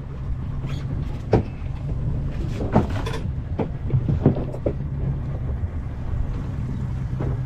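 Fishing boat's engine running with a steady low hum, with scattered sharp knocks and clicks on board, several close together in the middle and one near the end.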